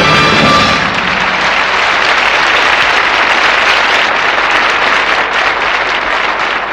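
The band's final chord ends under a second in, then a concert audience applauds steadily.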